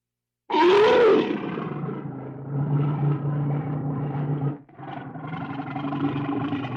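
A bear roaring: a loud call that rises and falls in pitch starts suddenly about half a second in, then settles into a long, steady low growl that breaks off briefly about four and a half seconds in and resumes.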